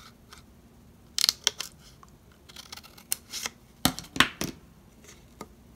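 Scissors snipping through black cardstock along a score line: short, sharp snips in a few clusters, the loudest about four seconds in.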